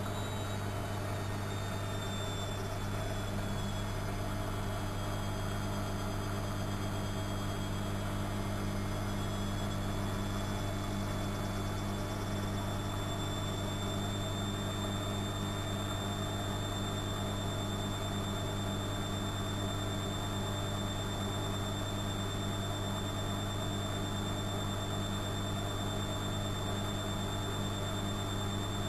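Studio WM26AAA washing machine running steadily, with a low hum and a high motor whine that dips slightly in pitch over the first few seconds and then holds.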